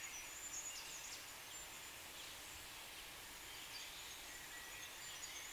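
Faint outdoor ambience, with distant birds chirping now and then in short, high calls.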